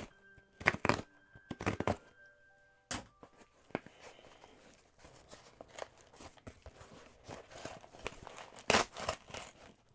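A cardboard shipping box being handled and opened by hand: a few sharp knocks and thuds, with tearing and rustling of the packaging in between.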